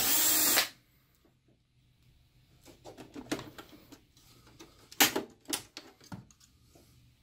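Electric screwdriver whirring for about half a second as it backs out a screw, followed by scattered clicks and knocks of plastic as the projector's rear panel is pulled loose.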